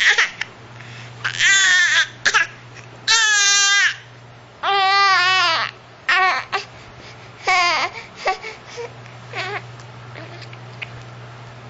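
A baby vocalizing in a string of about six high-pitched cries and squeals that rise and fall in pitch, each up to about a second long, fading out after about eight seconds. A steady low hum runs underneath.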